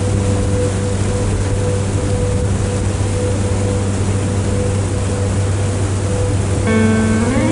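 Steady rushing water of a large waterfall, a dense even noise. Soft sustained background music plays beneath it, with a chord sliding into a new one near the end.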